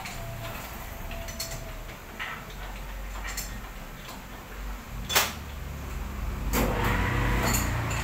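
Metal clinks and scrapes of a chuck key working the jaws of a lathe's four-jaw chuck, with one sharp metallic clank about five seconds in. A low engine rumble builds through the second half.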